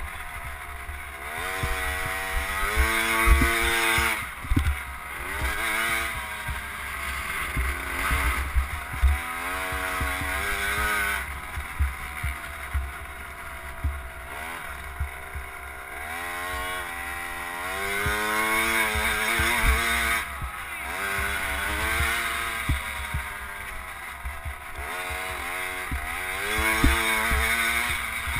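KTM SX 50's 49 cc two-stroke single-cylinder engine, heard from on board, revving up and dropping back several times as the bike accelerates and backs off through the turns, with low thumps and wind rumble on the microphone.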